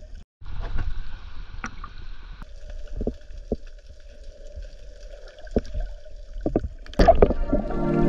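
Muffled underwater sound picked up by a camera held under the sea: a low water rumble with scattered small knocks and bubbling, louder about seven seconds in.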